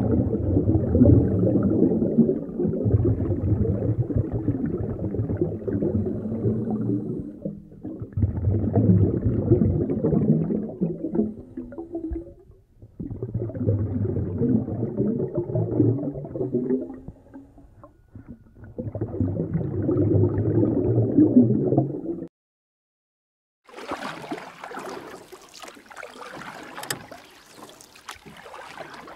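Muffled underwater rumble and sloshing picked up by a GoPro submerged in a lake, swelling and fading every few seconds. After a sudden cut to silence about 22 seconds in, a shallow stream ripples and splashes past the camera at the water surface.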